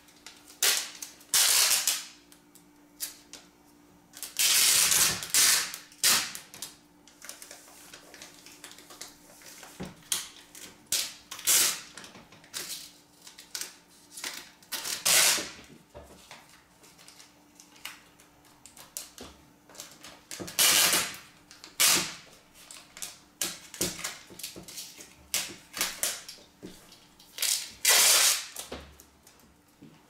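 Packing tape being pulled off its roll in a dozen or so short, noisy rips, with pauses between them while the strips are pressed onto the window frame.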